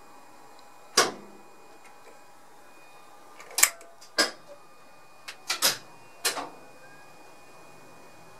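Sharp clacks of rotary switches being turned on the driver's control desk of a class 451 electric unit during start-up. There are about seven clicks, some in quick pairs, with the loudest one about a second in.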